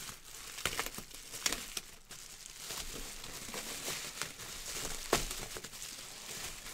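Plastic bubble wrap crinkling and crackling as it is pulled open by hand, with scattered sharp snaps, the loudest about five seconds in.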